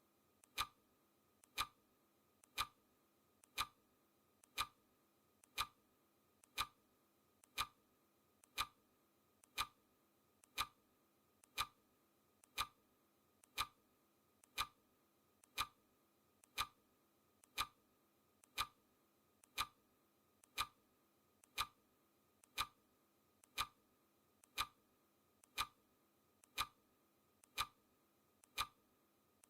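Clock ticking sound effect, one crisp tick every second, each with a faint softer click just before it.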